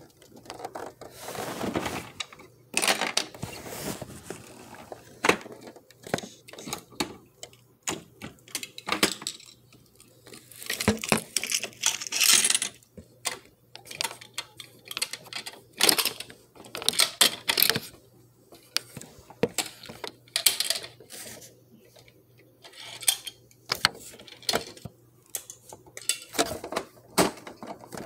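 Plastic toy garbage truck and small plastic toy trash cans being handled and knocked together: irregular clicks, taps and rattles, with a few brief scraping stretches.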